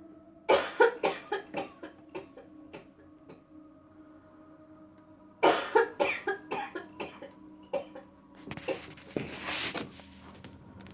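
A man coughing in two fits of rapid, sharp coughs, the first starting about half a second in and the second about five and a half seconds in, each trailing off, then a longer raspy, breathy hack near the end.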